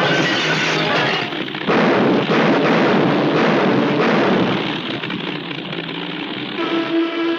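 Cartoon sound effects: a crash with crackling sparks from the bomber's smashed control panel, then a loud rushing noise of the giant bomber's engines that eases off about two-thirds of the way through. Near the end a steady pulsing drone comes in.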